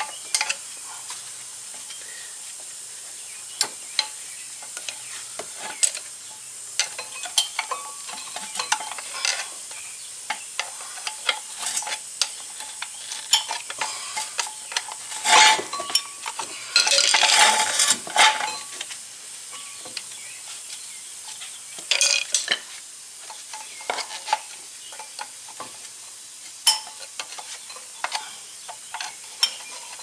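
Metal clicks, clinks and scrapes of brake pads and caliper-bracket hardware being handled and worked loose by hand, with a louder stretch of scraping about halfway through.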